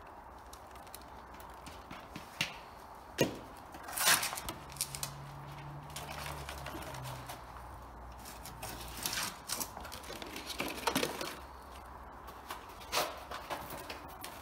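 Hands scooping and pressing loose compost into a black plastic nursery pot while potting up seedlings, with scattered knocks and rustles of the pot and soil.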